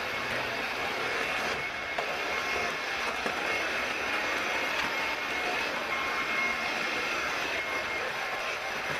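Steady running noise of a moving vehicle, with a thin high whine held throughout.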